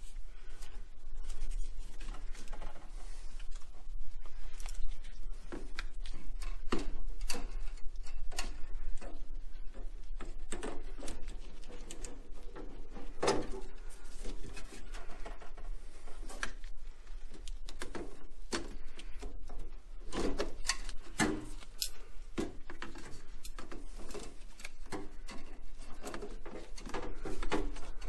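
Irregular clicks, knocks and rubbing of gloved hands and pliers working hose clamps and plastic hoses off a tankless water heater's condensate neutralizer.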